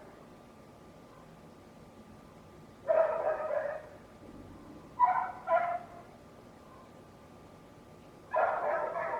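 A dog barking: one drawn-out bark about three seconds in, two short barks a couple of seconds later, and another drawn-out bark near the end.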